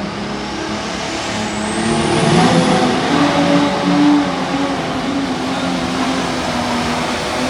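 Light Pro Stock pulling tractor's turbocharged diesel engine running hard at high revs, its pitch stepping up and down, with a thin rising turbo whistle about two seconds in.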